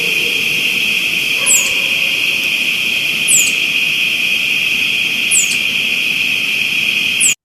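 Southern flying squirrel calling at night: very high, thin chirps that sweep downward, one about every two seconds, four in all. A steady high-pitched drone runs underneath, and the recording cuts off suddenly near the end.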